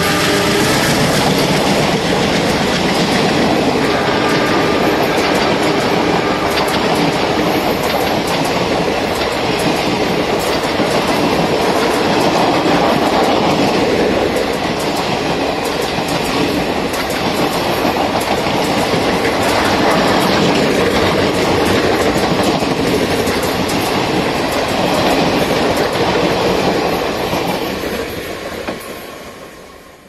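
Indian Railways passenger coaches rolling past at speed, a steady rumble and clatter of wheels over the rail joints. The last of the diesel locomotive's horn cuts off just as it begins, and the train noise fades out near the end.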